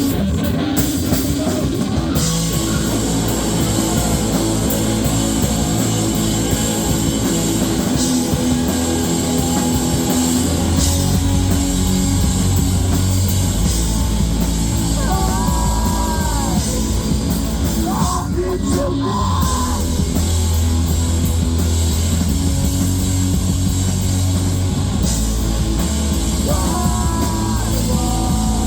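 Live rock band playing loud, heavy music with electric guitar and drums.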